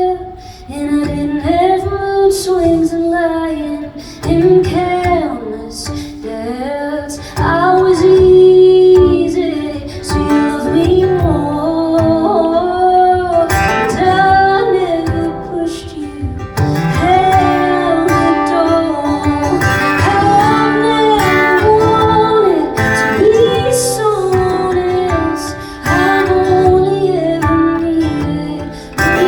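Live performance of a song: a woman singing lead over strummed acoustic guitar.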